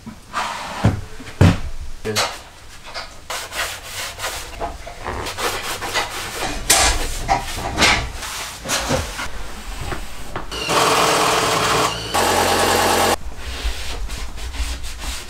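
Hands rubbing and scraping over drywall and wooden framing in short, uneven strokes. About two-thirds of the way through, a louder steady rushing noise runs for about two and a half seconds, then stops.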